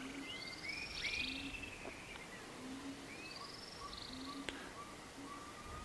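Faint birdsong: several birds chirping with short whistled notes that rise and fall in pitch, plus a single sharp click about three-quarters of the way through.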